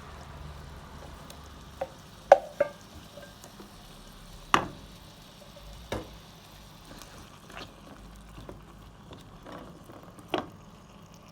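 Carrots and potato cooking in coconut milk in a pot, giving a low, steady sizzle, while a spoon stirs and knocks against the pot several times, sharpest about two seconds in and again about four and a half seconds in.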